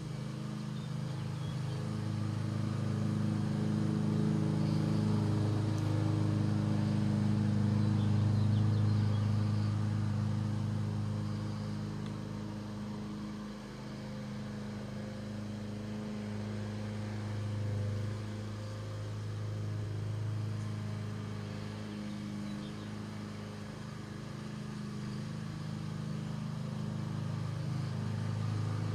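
Quadcopter drone's propellers humming steadily in flight, a low droning tone whose pitch drifts slightly and swells now and then as the drone manoeuvres.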